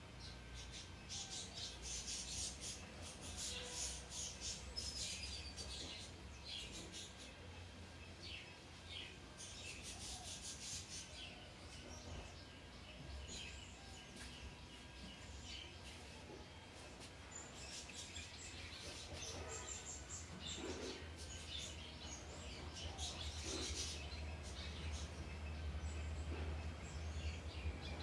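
Small birds chirping: many short, high chirps in irregular clusters, over a low steady rumble.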